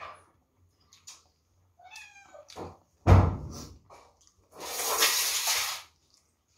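Eating and table-handling noises: a sharp knock about three seconds in, the loudest sound, then a rustling hiss lasting over a second. Shortly before the knock comes one brief, wavering meow from a cat.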